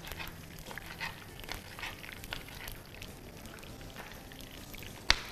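Onion and garlic frying in a pan, faint scattered crackling, with small utensil clicks and one sharp click near the end.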